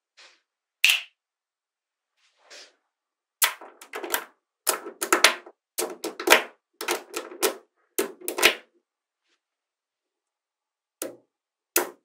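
Magnetic balls clicking as they snap and clack together while being pressed and folded into shape. It starts with a few lone clicks, then a dense, irregular run of sharp clicks from about three and a half to eight and a half seconds in, and two single clicks near the end.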